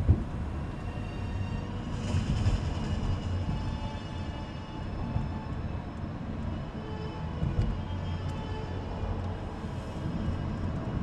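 Car with a 1.7 CDTI turbodiesel driving along: a steady low rumble of engine and tyre noise, with a single thump right at the start.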